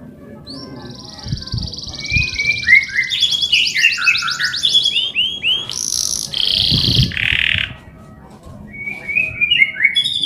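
Male domestic canary singing. A long rolling trill speeds up, then runs into quick chirping notes. After a short pause about three-quarters of the way through, the chirping song starts again near the end.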